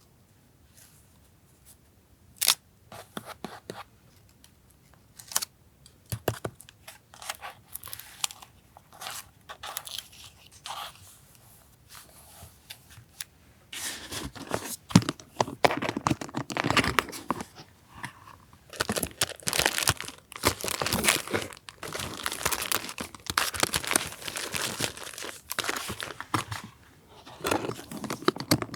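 Paper being handled for a journal collage: scattered taps and rustles at first, then from about halfway dense crinkling and tearing.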